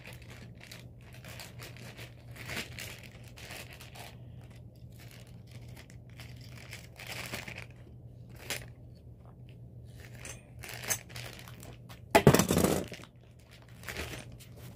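Crinkling and rustling of a bag being handled, coming in irregular bursts, loudest about twelve seconds in, over a steady low hum.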